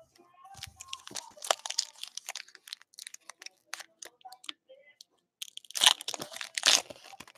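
Foil wrapper of a 2019-20 Panini Prizm basketball card pack crinkling and crackling in the hands as it is worked open, then two loud tearing rips near the end as the pack is torn open.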